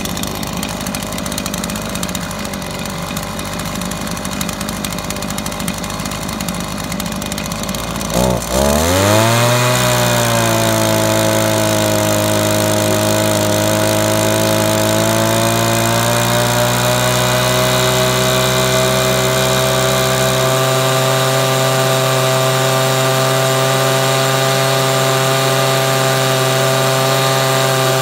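Echo PB2100 leaf blower's two-stroke engine with an aftermarket carburetor, running at a lower speed at first, then opened up to full throttle about eight seconds in, its pitch sweeping up and settling into a steady high-speed whine. Around halfway its pitch creeps slightly higher as the high-speed needle is turned in to lean the mixture toward peak RPM.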